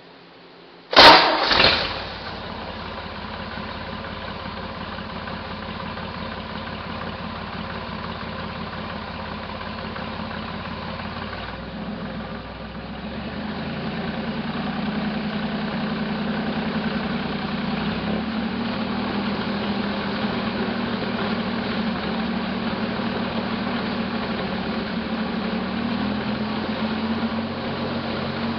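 Buick 225 V6 in a 1968 Jeepster Commando cranking and catching about a second in, then idling steadily and a little louder from about halfway. It is still misfiring on one cylinder, with a mechanical noise that the owner takes for some kind of mechanical damage.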